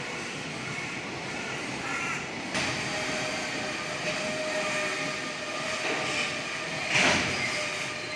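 Container freight train rolling past at a station: a continuous rumble of wheels and wagons with a thin steady wheel-squeal tone over it. There is a sharp knock about two and a half seconds in, and a louder short burst near the end.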